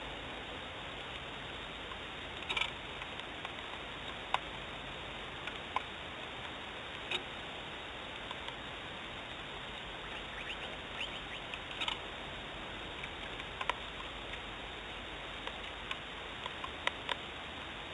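Steady hiss with scattered sharp ticks at irregular moments, a dozen or so: light raindrops striking the nest camera's housing.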